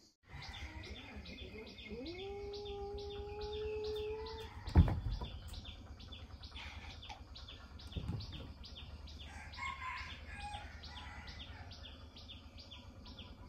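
A steady run of short high chirps, about three a second, with a low rumble under it. From about two seconds in a single held call rises and then stays level for about two and a half seconds. Just before five seconds comes a sharp thump, the loudest sound, and a smaller one follows about three seconds later.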